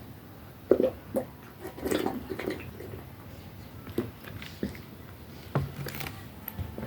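Gulping and swallowing of fizzy drink from a 2-litre plastic bottle, with small clicks and knocks in irregular bursts. The busiest stretch comes in the first three seconds.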